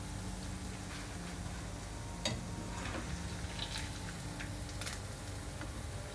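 Battered anchovies sizzling steadily in hot oil in a non-stick pan, with a few sharp clicks of a plastic slotted spatula against the pan as fried pieces are lifted out, the clearest about two seconds in and near five seconds in.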